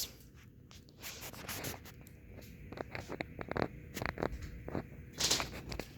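Faint handling noise: scattered light scratches and clicks, growing busier midway, with a louder rustle a little after five seconds in.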